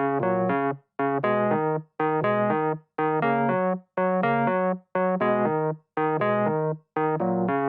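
Keyboard music: a short riff of stepping notes repeated about once a second, each cut off by a brief gap.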